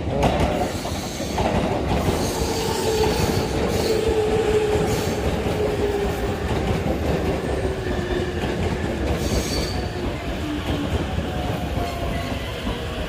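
JR East E257 series electric train running past alongside the platform as it pulls into the station, wheels clattering on the rails. A whine falls in pitch as the train slows.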